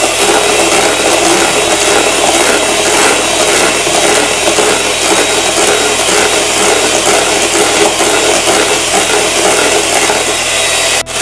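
Hand-held electric beater running on its second speed, its whisks churning liquid whipping cream in a plastic bowl: a steady motor whir with a rubbing, whisking noise. It dips briefly near the end.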